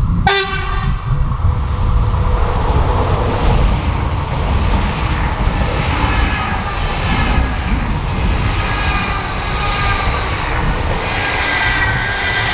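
A train passing on a mainline railway. A brief horn-like blast sounds just after the start, then the rush of the passing train runs on with several whining tones slowly falling in pitch.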